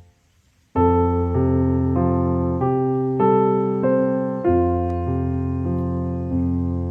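Background music: a gentle piano melody that starts about a second in, after a brief gap, with notes changing every half second or so.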